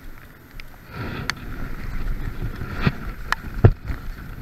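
Rustling and wind noise on a chest-mounted camera as its wearer moves and turns, with a few sharp knocks and one heavier low thump about three and a half seconds in.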